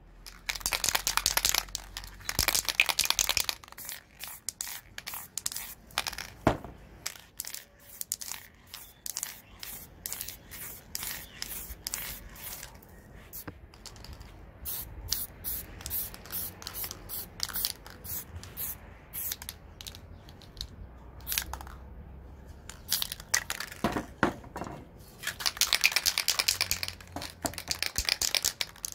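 Aerosol spray paint can spraying in two long hisses, one near the start and one near the end, with irregular crinkling and clicking in between.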